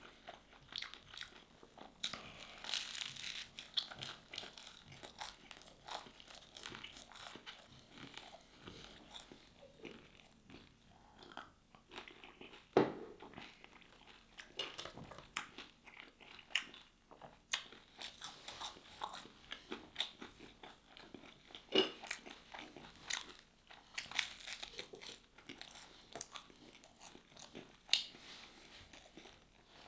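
A person chewing and biting crunchy food close to the microphone: a steady run of irregular crunches and mouth sounds, with a few louder bites.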